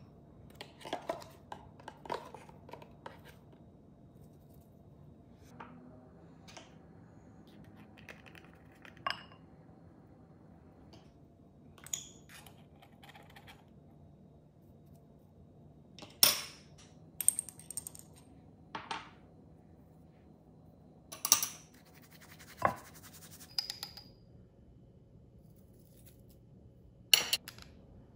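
Metal measuring spoons and glass spice jars clinking and tapping as spices are measured out into a glass mixing bowl. The sharp clicks come singly or in short clusters a few seconds apart, the loudest about halfway through and near the end.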